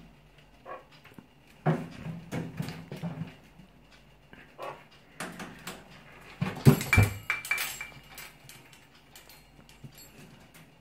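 A meerkat rummaging in a kitchen wall cupboard while standing on a microwave: scrabbling and scattered knocks. About six to eight seconds in comes the loudest part, a burst of clattering with some ringing.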